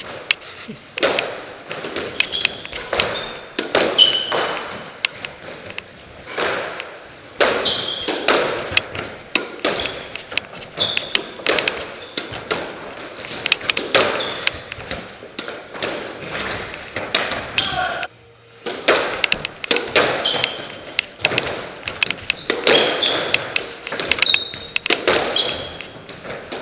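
Squash rally: the ball cracking off rackets and thudding against the court walls, hit after hit a second or two apart, with short high squeaks of shoes on the wooden floor between the hits.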